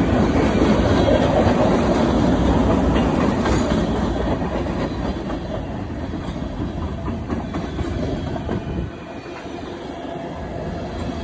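Freight train of tank cars rolling past at close range: steel wheels running on the rails in a dense, steady rumble that eases and drops somewhat about three quarters of the way through.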